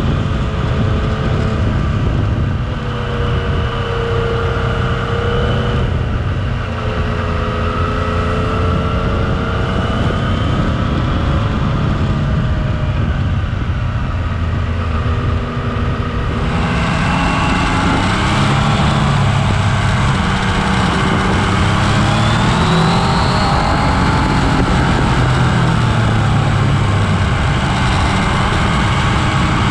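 Yamaha Tracer 900's three-cylinder engine running at moderate road speed, its pitch rising and falling with the throttle through the bends, over steady wind and road noise. About halfway through, the sound turns suddenly brighter and fuller, with more wind rush.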